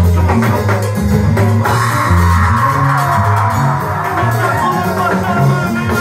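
Live band playing an upbeat Latin-style dance song: electric guitar, keyboards and drum kit over a moving bass line, with a sung melody in the middle of the stretch.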